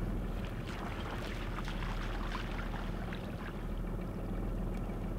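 Small outboard motor running steadily at trolling speed, a low hum, with light scattered ticks from a baitcasting reel being wound in during the first few seconds.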